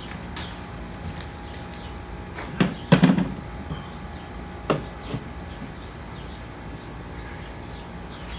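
A few sharp clanks and knocks of tools being handled while a hydraulic pump is taken apart, a cluster about three seconds in and another near five seconds, over a steady background hum.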